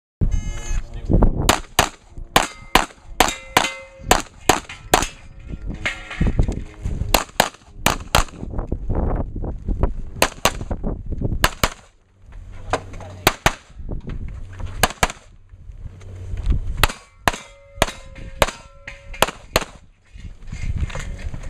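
Handgun shots fired in rapid strings, a pair or a few at a time, with short breaks between strings about twelve seconds in and near the end.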